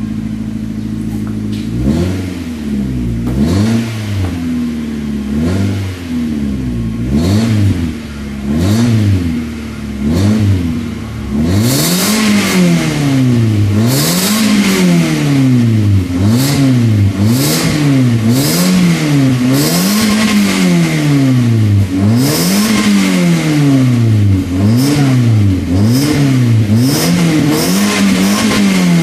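Mazda3 1.6 four-cylinder engine breathing through an aftermarket performance exhaust: it idles briefly, then is blipped and revved up and down over and over. After about the first ten seconds the revs climb higher and come one after another, roughly every second and a half.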